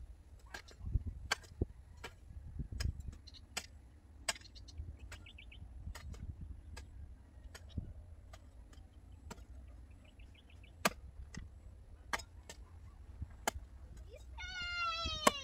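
Garden hoe chopping into dry soil and roots, sharp strikes about once a second, over wind rumble on the microphone. Near the end comes a short, high-pitched cry that falls in pitch.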